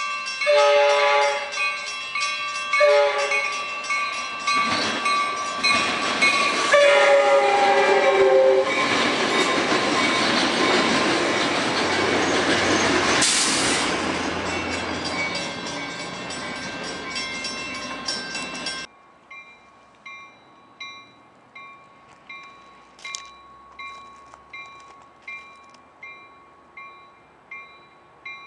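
Commuter train's multi-chime horn sounding three blasts, two long and one short, as it approaches, then the loud noise of the bi-level train passing, with a brief high squeal midway. A grade-crossing bell rings throughout, and after a sudden cut it dings steadily a little more than once a second.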